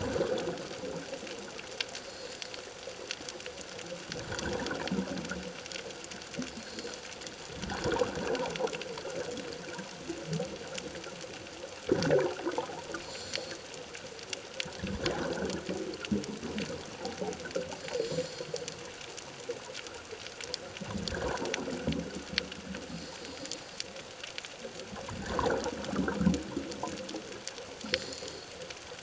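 Scuba diver breathing through a regulator underwater: a faint hissing inhale, then a rush of exhaled bubbles, repeating roughly every four seconds.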